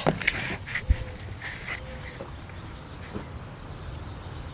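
Irregular clicks and knocks from the camera being handled and moved, bunched in the first second with one low thump, then quieter outdoor background.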